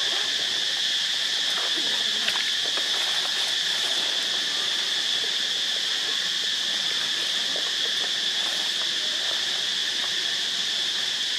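Steady chorus of insects: a continuous high-pitched drone that does not rise or fall, with a few faint clicks.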